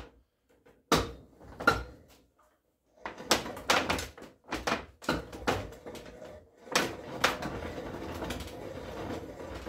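Hand-worked barrel-reaming bench turning a reamer through a rifle barrel bore: irregular knocks and clicks of wood and metal, a few a second, with two short pauses early on and a steadier hiss from about seven seconds in.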